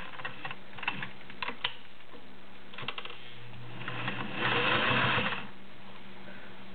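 Vintage Singer 404 sewing machine at rest between seams: a few light clicks and knocks as the handwheel is turned and the fabric is set under the presser foot. About four seconds in there is a second of rustling, over a faint steady hum.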